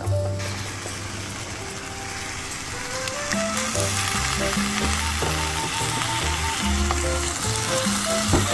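Cubed beef, potato and onion sizzling in a hot pot as a wooden spatula stirs them, over soft background music.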